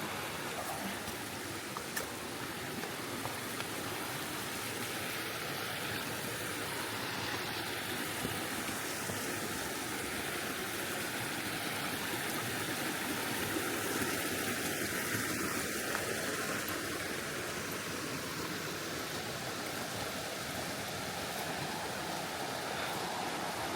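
Steady rush of a rainforest river flowing over rocks.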